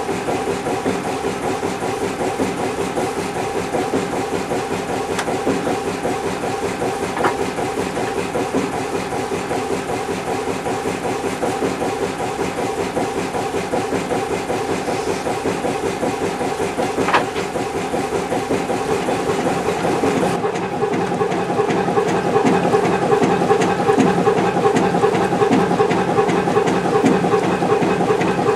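Kromhout 2H3 two-cylinder marine diesel engine running under way, its exhaust stack giving a steady rhythmic chuffing beat. About 20 seconds in the sound jumps to a louder take of the same running engine.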